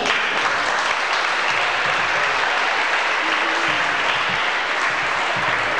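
Audience applauding, a steady crowd of hands clapping.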